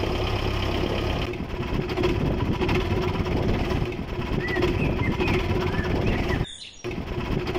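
Small motor of a homemade miniature toy tractor running steadily with a constant drone. It cuts out for a moment about six and a half seconds in, then resumes.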